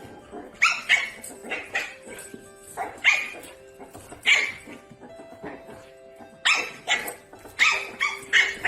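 A dog barking in short, sharp barks, in quick groups of two or three, with faint background music underneath.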